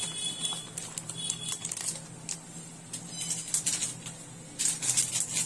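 Plastic flour packet crinkling as wheat flour (atta) is poured from it into a bowl, in light scattered crackles and ticks, with a louder spell of crinkling near the end.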